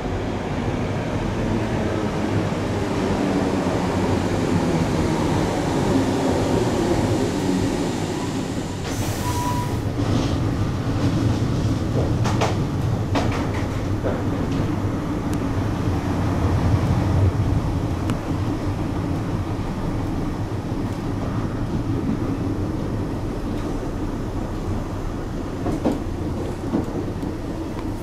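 Class 314 electric multiple unit running: a steady rumble of wheels and motors, first as the train draws into a platform, then heard from inside a carriage, with a run of sharp clicks from the wheels over rail joints in the middle.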